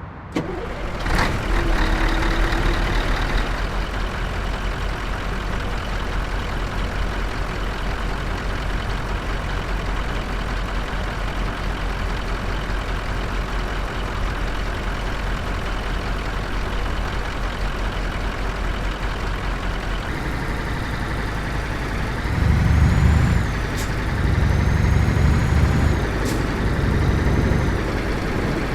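Scania R730 truck's V8 diesel engine running steadily, with a sharp click about a second in. Near the end it is revved several times in short bursts.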